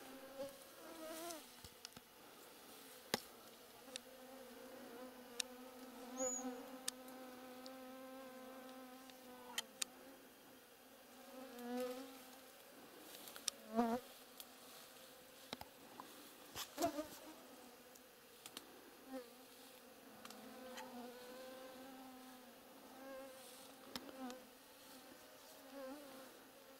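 Flying insects buzzing past, each buzz a hum that drifts up and down in pitch as it comes and goes, again and again, with a few faint ticks and clicks in between.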